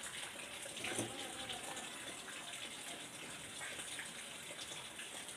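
A steady hiss of background noise, with a faint knock about a second in.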